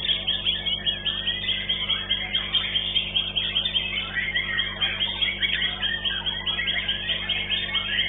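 White-rumped shama (murai batu) singing a fast run of short, repeated chirping notes, about four or five a second, in a bird-song contest.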